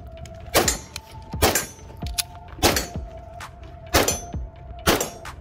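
Five pistol shots fired at a steady pace of about one a second, each a sharp crack.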